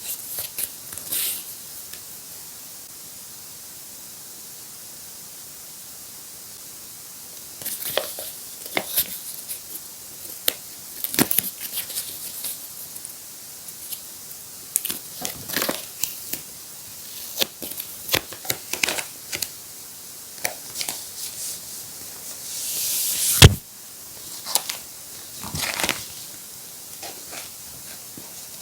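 Paper being handled: scattered crinkling, rustling and light taps, with a tearing sound that builds for about a second and ends in a sharp snap near the end.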